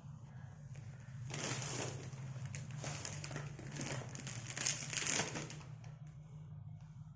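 Packaging of a desk-mat mouse pad being handled and crinkling, in a run of rustling bursts from about a second in until about five and a half seconds in.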